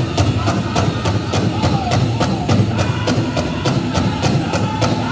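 Powwow drum group singing a chicken dance song over a fast, steady beat on the big drum.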